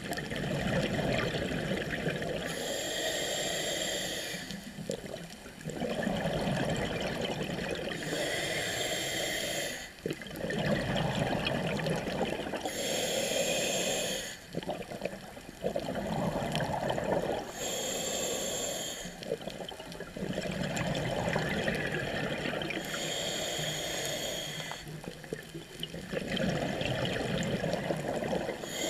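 A scuba diver breathing through a regulator underwater: a hiss on each inhale and a rush of exhaled bubbles, repeating about every five seconds.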